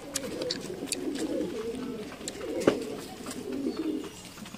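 Domestic pigeons cooing, a continuous low warbling, with scattered sharp clicks and one louder knock a little past halfway through.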